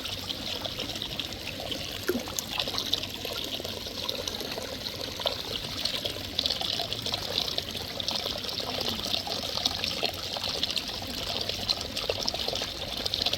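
Natural hot spring water trickling and pouring steadily, with fine splashy crackle.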